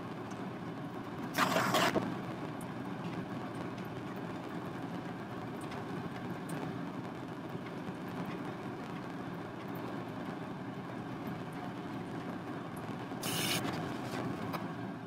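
Steady low background hum, with two brief rustles from the canvas being handled and tilted, one about a second and a half in and one near the end.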